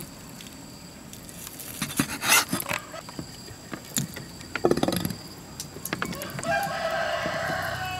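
A rooster crows with one long call near the end, after a chicken's short call about halfway through. Earlier come sharp knocks and scrapes of a knife on a wooden chopping block as meat is cut and plated.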